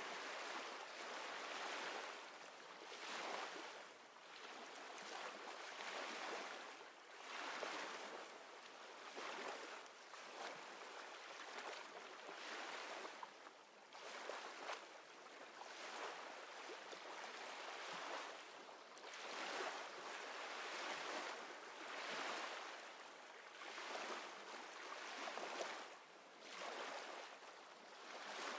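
Ocean waves washing in and drawing back, a rushing noise that swells and fades about every two seconds.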